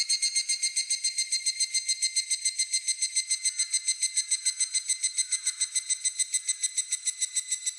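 Higurashi (evening cicada) calling: a fast, even train of clear, ringing pulses, about eight a second, growing slightly weaker near the end.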